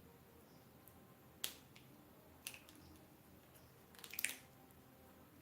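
Quiet room with a few short, sharp clicks or taps: one about a second and a half in, another about a second later, and a quick cluster of several near the end.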